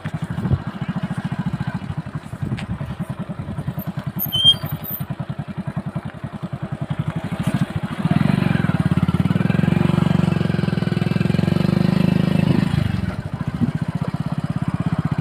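Small engine, most likely a motorcycle's, running with a rapid even pulsing beat. It grows louder from about eight seconds in, as if speeding up, then eases back about thirteen seconds in.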